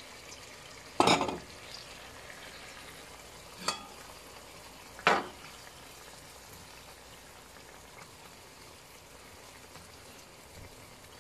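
Pork simmering in broth in a pan, a steady low bubbling hiss. A stirring utensil knocks against the pan three times, loudest about a second in, then again near 4 and 5 seconds.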